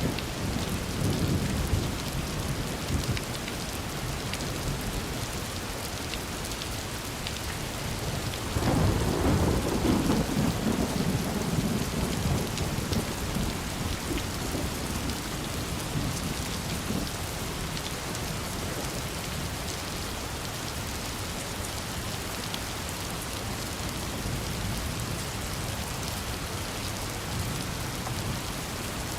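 Steady rain falling, with thunder: a low rumble at the start and a louder roll about a third of the way in that dies away over several seconds.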